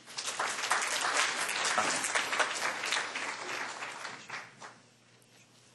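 Audience applauding: a dense run of many hands clapping that thins out and dies away about four and a half seconds in.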